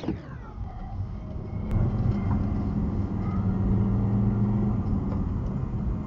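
Car engine and road noise heard from inside the cabin as the car pulls away and speeds up, with the low engine hum growing louder about two seconds in.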